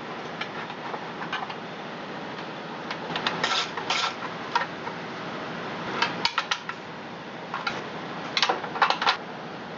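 Metal clinks and rattles from hand tools and the sheet-metal recoil starter housing of a Honda GX270 engine being unbolted and turned to a new position. They come in short clusters of clicks: around three seconds in, again around six seconds, and near the end.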